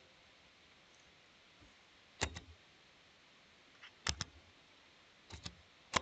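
Computer mouse clicking: three quick double clicks spaced a second or two apart, then a single sharper click near the end.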